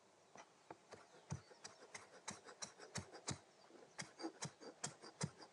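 Kitchen knife mincing fresh cilantro on a cutting board: a quick run of light, sharp taps, about three or four a second, starting just under half a second in.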